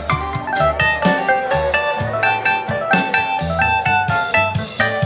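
Live band music: an electric guitar lead of stepping notes over drums, bass guitar and keyboards.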